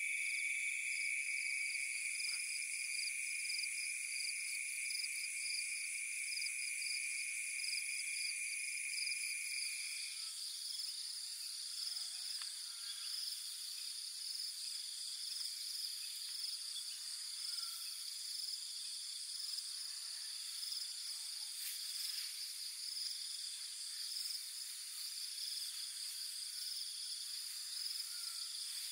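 Chorus of night insects such as crickets, a steady shrill buzzing at several pitches at once; the lowest of the pitches stops about a third of the way through while the higher ones carry on.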